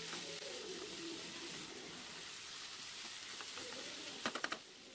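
Egg-coated mutton curry sizzling in a pan while a plastic spatula stirs it. A few quick clicks of the spatula against the pan come near the end.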